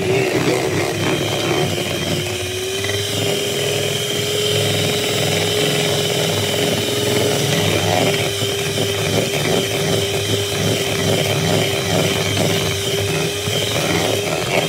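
Electric hand mixer running with a steady motor whine, its beaters whipping butter icing of butter and icing sugar in a bowl.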